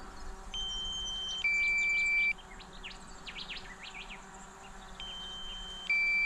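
Drone controller sounding its low-battery warning: a two-tone electronic beep, a higher tone held for about a second and then a lower one for about a second. It comes twice, about four and a half seconds apart, with birds chirping in between.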